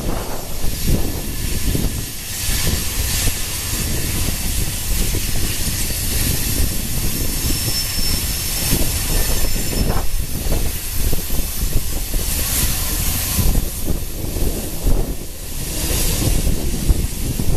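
Freight cars of a heavy BNSF manifest train rolling past, steel wheels rumbling steadily on the rails.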